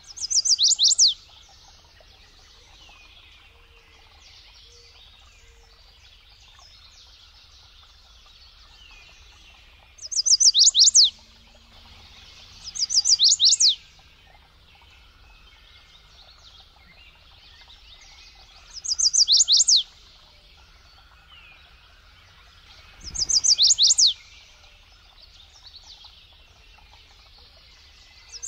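Chestnut-sided warbler singing: about five short songs, each a quick run of high, sharp down-slurred notes lasting about a second, a few seconds apart. Faint calls of other birds fill the gaps.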